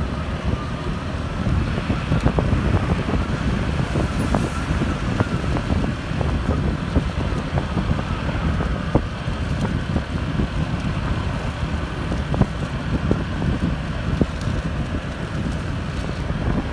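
Wind rushing over the microphone of a moving motorbike, over a steady low rumble of engine and tyres on the road, with occasional small clicks.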